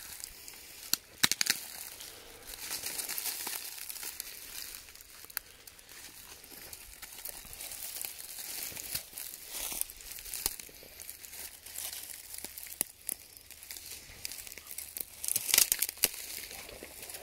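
Footsteps crunching and rustling through dry dead leaves and twigs, with scattered sharp crackles and a louder cluster of crunches near the end.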